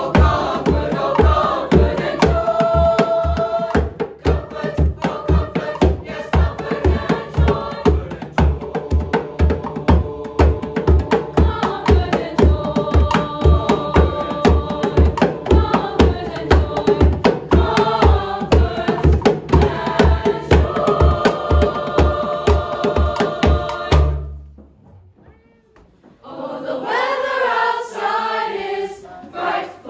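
Chorus of male voices singing over a steady beat on hand drums, a large djembe-style drum and a small hand drum, about two strokes a second. The music breaks off suddenly near the end, and after a short pause a chorus of female voices sings with no drums.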